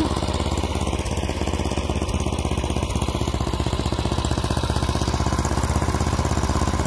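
Gas snow blower engine running steadily under load while it is pushed through deep snow, which is being fed in slowly so the machine can keep up.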